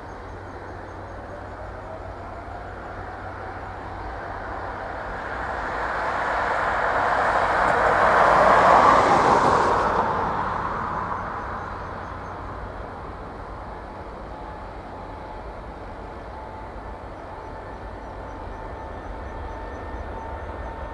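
Boeing 777-200LR's twin General Electric GE90 jet engines at takeoff power on the runway. The jet noise swells to its loudest about nine seconds in and then eases off, with a faint steady whine in the later seconds.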